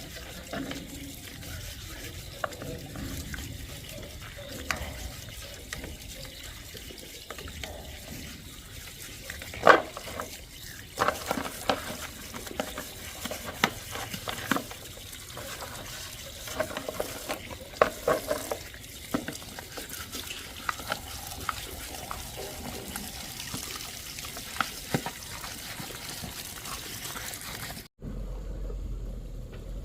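Water being handled, sloshing and trickling, with scattered sharp clinks and knocks, most of them in the middle. A sudden cut near the end to a steady low rumble.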